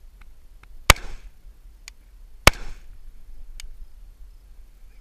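Two rifle shots about a second and a half apart, each a sharp crack with a short echoing tail. Faint ticks fall between them.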